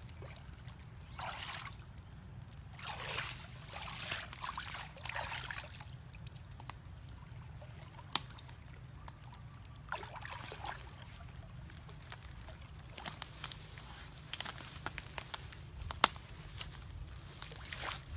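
Creek water sloshing and splashing in bursts as a person wades and works a wooden stake in the shallows, with a few sharp knocks, the two loudest about eight seconds in and near the end.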